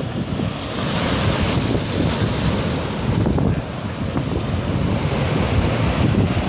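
Large ocean waves breaking and crashing, a loud surging roar that swells into a hiss about a second in, with wind rumbling on the microphone.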